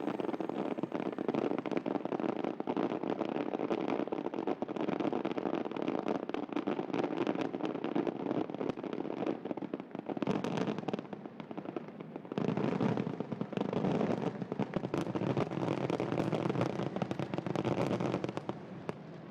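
Fireworks display: a dense barrage of rapid bangs and crackling shell bursts, easing briefly about halfway through, then a second heavy barrage that stops shortly before the end.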